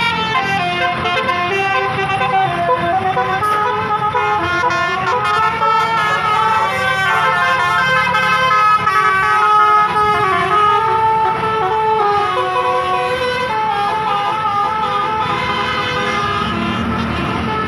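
Bus basuri 'telolet' air horns playing a melody of stepped notes, one after another, over the low running of the bus's engine.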